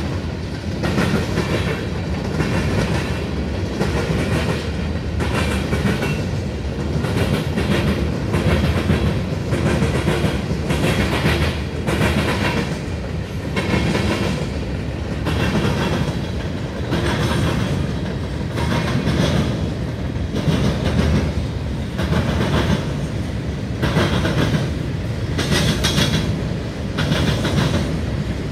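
Freight train of tank cars, covered hoppers and boxcars rolling past, wheels clicking over the rail joints in a steady clickety-clack over a constant low rumble.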